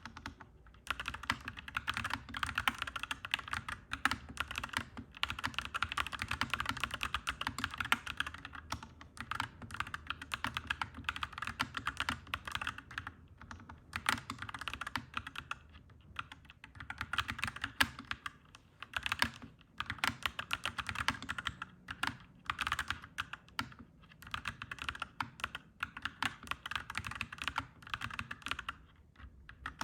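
Fast, continuous typing on a clacky mechanical keyboard, in runs of a few seconds broken by short pauses, over a low steady background rumble.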